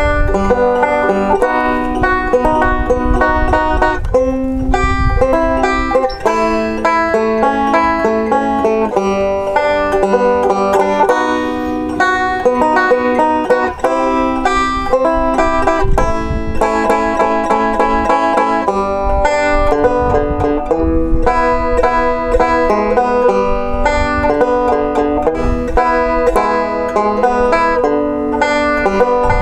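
Banjo-led instrumental music in a bluegrass or country style, with plucked melody notes over a steady bass beat.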